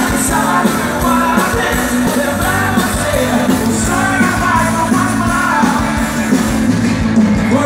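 Live rock band playing: a male singer over electric guitars and a drum kit, loud and continuous.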